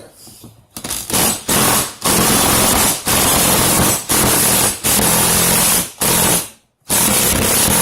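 Impact wrench run in repeated bursts of about a second each, some seven or eight triggers with short pauses between.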